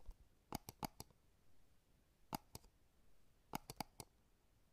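Near silence broken by faint, sharp clicks that come irregularly in small clusters of two or three.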